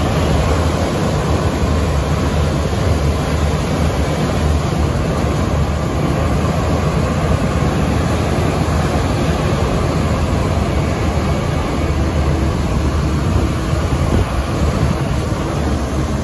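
A vehicle engine running steadily while moving along a dirt road, with wind rushing over the microphone.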